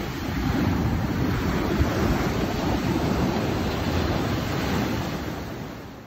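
Ocean waves breaking and washing over rocks: a continuous rushing surf that swells about half a second in and fades away near the end.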